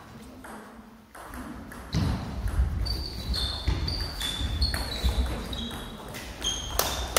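Table tennis rally: the celluloid-type ball clicking off bats and table in quick alternation, about three hits a second, starting about two seconds in.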